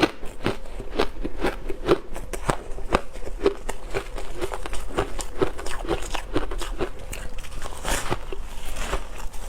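Ice being bitten and chewed close up: a quick, irregular run of sharp crunches, several a second.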